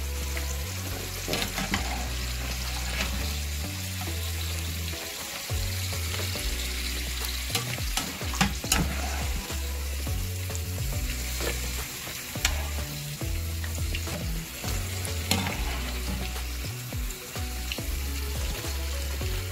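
Hot oil sizzling steadily from deep-frying yam chips, with sharp crackles and pops here and there.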